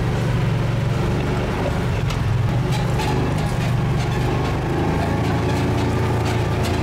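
Side-by-side utility vehicle's engine running steadily as the vehicle drives along.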